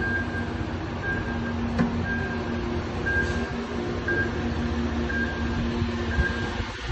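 Short, high electronic beeps repeating irregularly, about once or twice a second, over a steady low hum: a warning chime from a Workhorse all-electric delivery truck.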